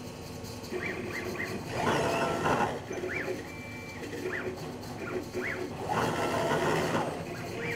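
Automated liquid-handling robot's motors whirring as the pipetting head moves, in short rising-and-falling whines. There are two louder stretches of motor noise, about two seconds in and again about six seconds in.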